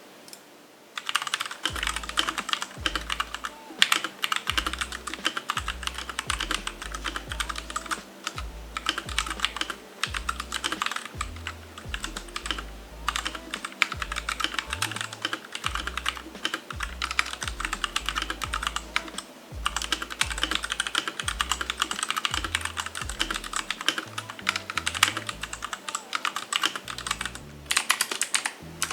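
Fast, steady typing on a Royal Kludge RK G68 mechanical keyboard resting on a desk mat: a dense run of key clicks and clacks that starts about a second in and breaks off briefly twice.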